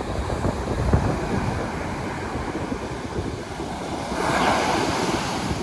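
Atlantic Ocean surf with wind buffeting the phone's microphone in a low rumble; a wave breaks about four seconds in, and its rushing hiss swells to the loudest point.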